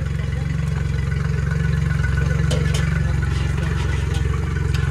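Yamaha four-stroke outboard motor idling steadily, with a couple of light clicks about halfway through.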